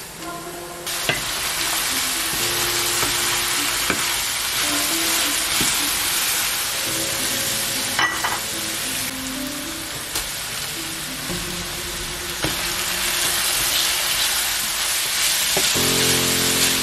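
Diced vegetables (carrot, onion, bell pepper, garlic) frying and sizzling in oil in a stainless steel pan, the sizzle starting about a second in, with a wooden spoon stirring and a few sharp knocks against the pan. Background music underneath.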